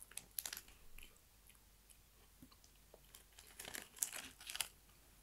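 Crunchy potato snack sticks (Jagarico) being bitten and chewed with the mouth close by. The crunching comes in two bouts, one from about half a second in and a louder one from about three and a half seconds in.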